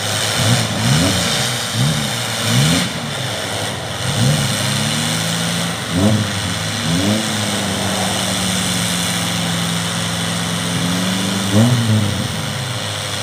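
An off-road 4x4's engine revved in quick repeated bursts, then held at steady high revs for about four seconds, and revved again near the end.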